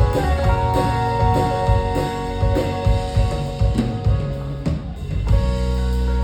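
Live band playing an instrumental passage: drum kit hits and fills under sustained pitched chords, settling about five seconds in onto one held chord with a deep bass note.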